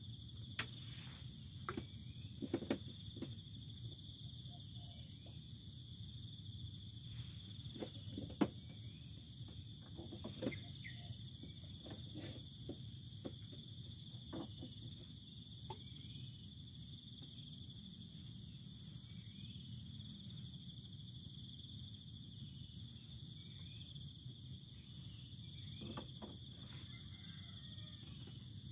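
Steady high-pitched chirring of insects, with a low steady rumble underneath. A few short knocks and clicks sound here and there, the loudest about 8 seconds in.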